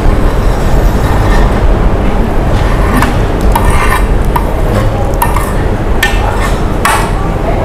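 Spoon clinking and scraping against a plate, a handful of sharp clicks over a steady low rumble of background noise.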